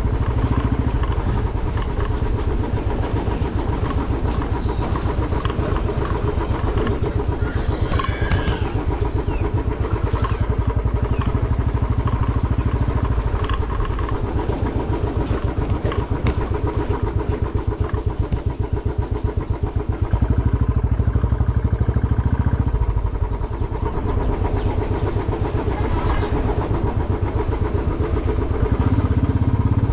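Motorcycle engine running while the bike rides over a rough, stony road, with scattered knocks and rattles. The engine gets louder about twenty seconds in.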